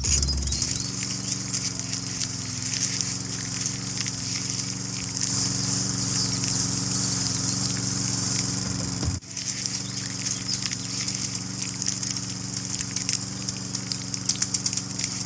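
A small electric motor running steadily under a crackling hiss, with a brief break about nine seconds in.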